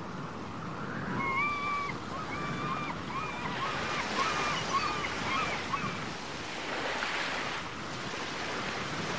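Ocean waves washing onto a shore, swelling and ebbing, with a run of short, clear pitched calls from about a second in until about six seconds in.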